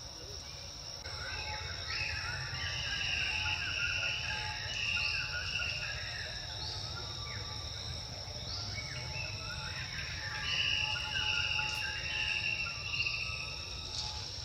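Steady high insect trill, like crickets, with louder warbling calls rising and falling over it from about a second in to near the end.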